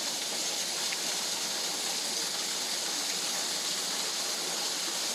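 Steady rushing of a jungle waterfall and its stream, even and unbroken.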